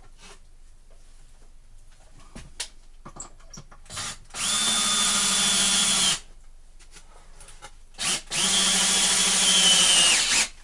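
Power drill driving a wood screw into a 2x4, in two steady runs of about two seconds each, each with a brief start just before. The screw ends up sunk below the surface of the wood.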